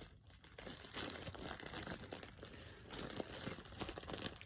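Plastic packaging crinkling and rustling irregularly as it is handled, someone trying to get it open.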